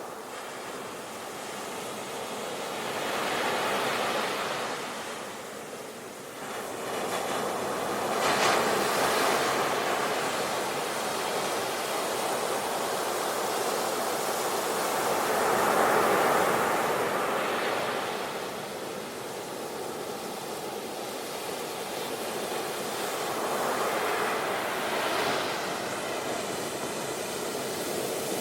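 Ocean waves breaking and washing onto the shore in a continuous surf, swelling and easing as each wave comes in, with about four larger breakers.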